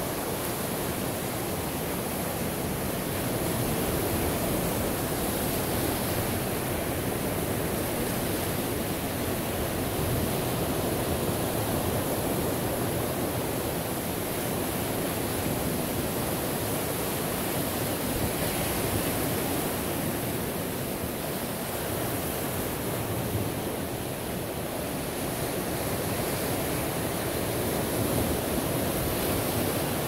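Ocean surf washing ashore in a continuous rushing sound that swells and eases slightly every several seconds.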